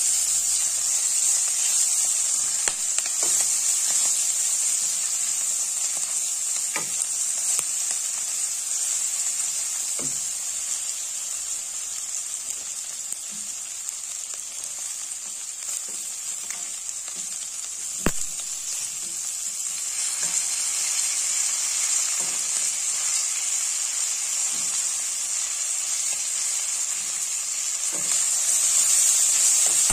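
Dried salt fish and onions sizzling in oil in a stainless steel wok, with occasional clicks and scrapes of a wooden spatula against the pan; the sizzle grows louder near the end.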